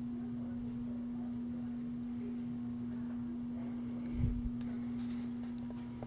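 Ceiling fan motor humming steadily as a single clear tone, with a brief low thump about four seconds in.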